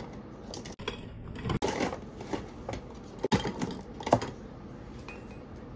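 Scattered light clicks and soft rustles of close handling and movement, irregular and a second or so apart, with no voices.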